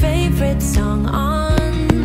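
Background music: a song with singing.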